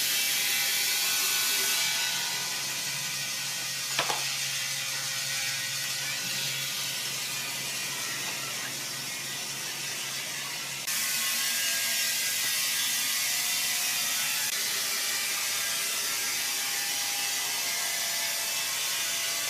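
Wood-milling machinery running steadily with continuous mechanical noise. There is one sharp click about four seconds in, and the level jumps abruptly twice.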